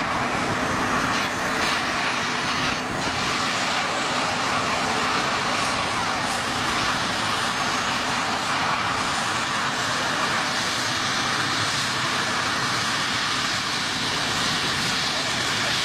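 Helicopter engine and rotor running with a steady, loud noise.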